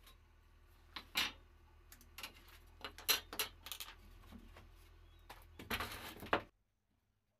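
Loose wooden pallet boards being handled: a run of knocks and clacks as the boards bump and slide against each other, with a denser clatter near the end. A low hum runs underneath, and everything cuts off abruptly.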